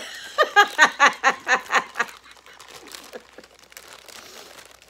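A quick run of laughter, about eight short falling 'ha' sounds in two seconds, followed by quieter crinkling of plastic candy packaging.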